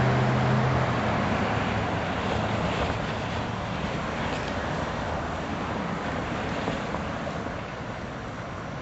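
A car on the road: a steady rush of road and wind noise with a low engine hum in the first second or so, slowly fading away.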